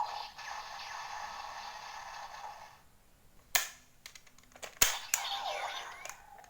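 DX Sengoku Driver toy belt being handled: an electronic sound effect plays and stops, then come several sharp plastic clicks and snaps, two of them much louder than the rest.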